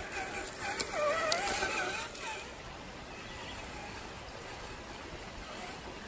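RC4WD Trail Finder 2 scale crawler's electric motor and gearbox whining, the pitch wavering up and down with the throttle, with a couple of sharp clicks. The whine fades out about two seconds in, leaving a quieter steady hiss.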